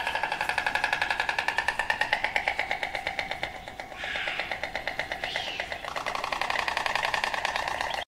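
An animal's fast, pulsing trill of about ten pulses a second on a steady pitch, which steps up slightly about two seconds in and drops again about six seconds in.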